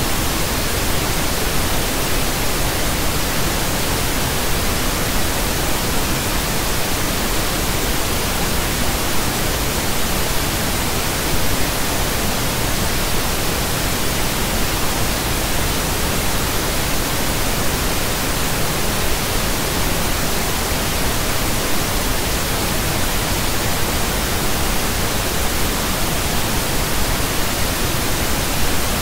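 Pink noise: a steady, even hiss spread across all pitches, with no changes or events.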